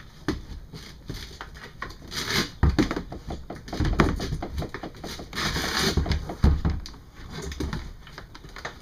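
A plastic battery box knocking and scraping as it is worked down into a plastic kayak hull. The knocks are irregular, with two longer rubbing scrapes, one about two seconds in and one around the middle.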